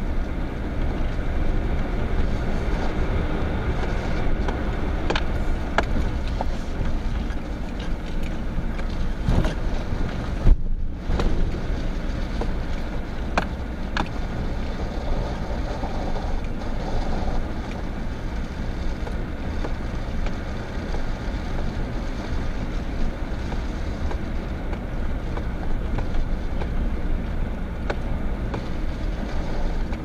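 A vehicle driving slowly on a rough, snow-covered dirt road: a steady low rumble of engine and tyres, with scattered knocks and rattles from bumps and a sharp knock about ten seconds in.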